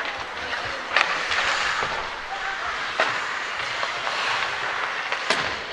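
Ice hockey play: skates scraping and carving on the ice, with sharp clacks of sticks and puck about one, three and five seconds in.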